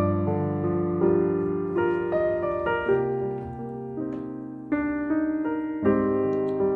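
Background piano music: a slow, gentle piece of sustained chords and melody notes, changing about once a second.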